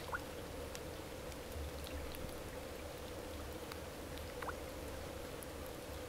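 Water trickling steadily, with scattered small drips and two short rising plinks of drops falling into water, one right at the start and one about four and a half seconds in.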